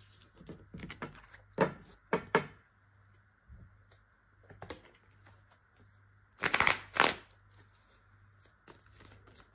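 Tarot cards being handled and shuffled: a few short papery slaps and rustles, with two louder bursts of card noise about six and a half and seven seconds in.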